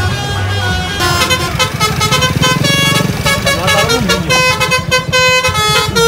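Several tour buses' basuri musical air horns (telolet horns) playing melodies at once, as held flute-like notes that change from one to the next. More horns join about a second in. A low rumble runs underneath.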